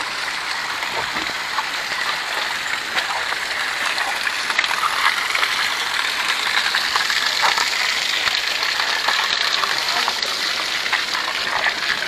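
Water rushing steadily, a continuous even gush that swells slightly in the middle.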